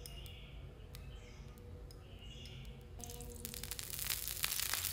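Liquid poured from a bowl onto a hot griddle plate. There is a faint trickle at first, then sizzling and spitting crackles start about three and a half seconds in and grow louder.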